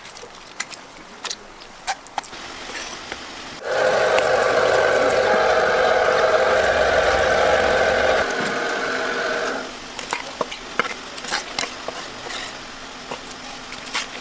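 A knife tapping and scraping on a wet wooden cutting board as squid is cleaned. About four seconds in, a motor starts running loudly and steadily for about six seconds, then stops.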